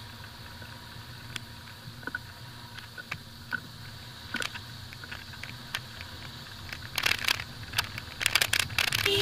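Low, steady rumble of a Maruti Suzuki Vitara Brezza driving slowly over a rough dirt-and-gravel road, with scattered clicks and knocks that grow busier near the end.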